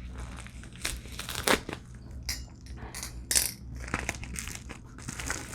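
A package being opened by hand: irregular crinkling and rustling of packaging, with a few sharper crackles about one and a half and three and a half seconds in.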